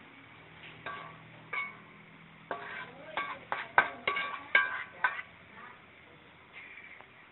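A metal spatula scraping and clinking against a wok as the stir-fried pork and vegetables are scraped out onto a plate. There are a dozen or so quick scrapes and knocks, some with a short metallic ring, clustered from about one to five seconds in.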